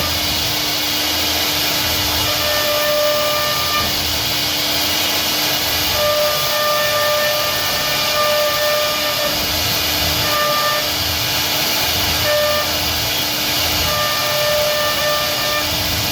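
CNC wood router running with a loud, steady hiss and a constant low hum, while higher whining tones switch on and off every second or two.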